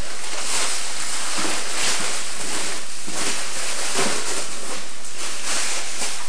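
Plastic packing and bubble wrap crinkling and rustling as they are pulled out of a cardboard box, in irregular bursts over a steady hiss.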